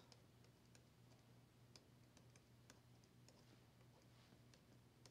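Near silence: faint, irregular clicks of a stylus tapping and writing on a tablet screen, a few a second, over a faint steady low hum.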